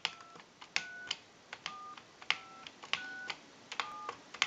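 Touch-tone (DTMF) dialing on a telephone keypad: about six short two-note beeps in steady succession, one digit after another, each set off by a click of the key. This is the keypad working, each press sending its digit down the line.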